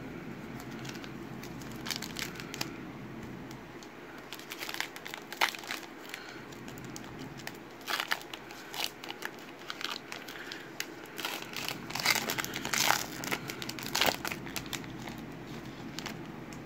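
Foil wrapper of a 2020 Panini Legacy football card pack being torn open by hand: irregular crinkling and tearing crackles, coming in clusters and busiest near the end.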